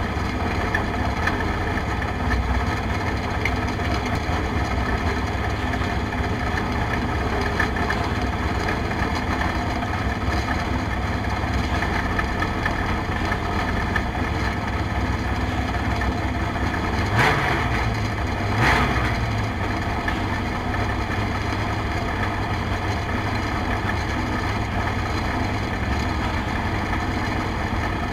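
Race car engine idling steadily, heard from the cockpit. Two short throttle blips come about a second and a half apart, roughly two-thirds of the way through.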